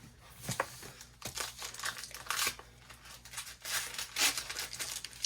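Foil Pokémon trading-card booster pack wrapper crinkling and tearing as it is opened, in irregular bursts; the loudest comes about four seconds in.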